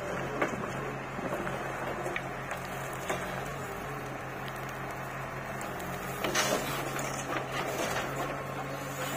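Backhoe loader's diesel engine running steadily under load as the rear bucket digs soil and lifts it over a tractor trolley, with a burst of clatter about six seconds in.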